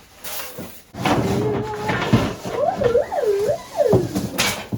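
A person's voice making a long, wavering wail whose pitch rises and falls twice, a joking imitation of a meme noise.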